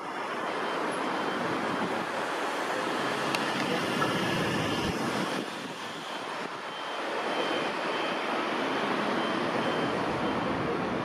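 Steady rush of city street traffic that eases briefly about six seconds in, with a faint high whine near the middle.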